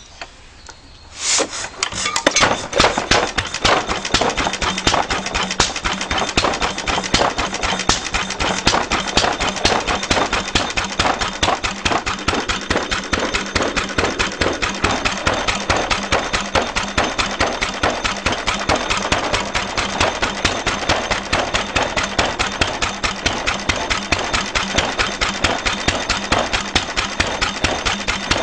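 2 HP Sundial Type B stationary engine starting up about a second in, then running steadily with a rapid, even beat of firing strokes.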